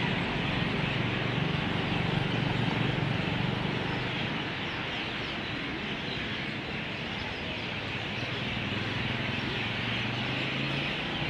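Steady outdoor street ambience: a low traffic hum with faint, high bird chirps scattered through it.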